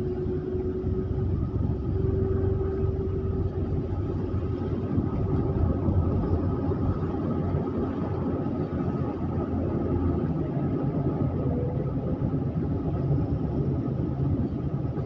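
Car driving at a steady pace: continuous low rumble of engine and tyres on the road, with a faint steady whine.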